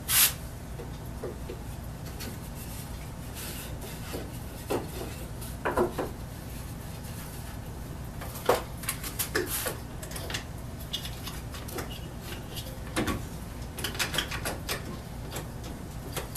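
Boards and wooden pieces handled on a wooden workbench: scattered knocks, clacks and short rubbing scrapes of wood on wood, with a steady low hum underneath.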